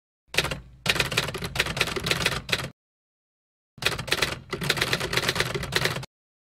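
Typing sound effect: rapid key clatter in two runs of a couple of seconds each, with a short silent gap between them.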